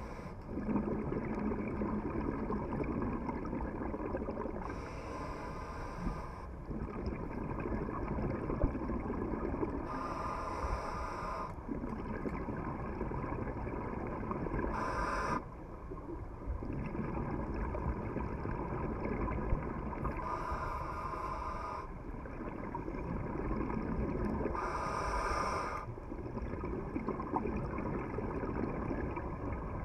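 A scuba diver breathing underwater through a regulator: a short hiss on each inhale, then a longer rumble of exhaled bubbles. There are about six breaths, one every five seconds or so.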